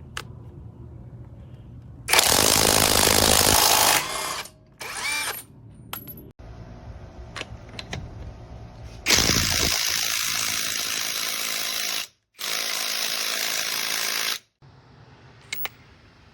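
Cordless impact wrench running in bursts: a run of about two seconds, two short blips, then a run of about three seconds and, after a brief stop, another of about two seconds.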